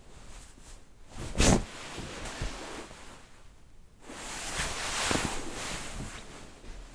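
Bed sheet being handled: a quick sharp swish about a second and a half in, lighter rustles, then a longer stretch of fabric rustling and sliding from about four to six seconds in.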